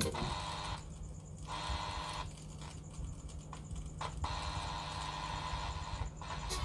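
Quiet music with held notes that drop out and return, over a steady low hum.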